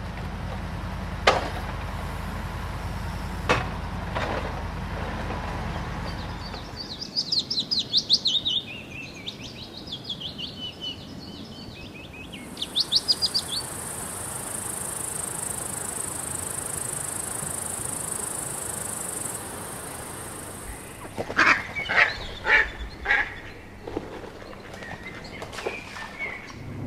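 A run of separate sound-effect samples. First a low rumble with a couple of knocks, then bursts of rapid high chirping bird calls, then a steady high hiss for several seconds. Near the end come a few sharp calls or knocks.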